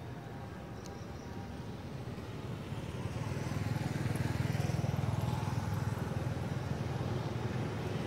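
Low rumble of a motor vehicle's engine, growing louder about three seconds in and then holding steady.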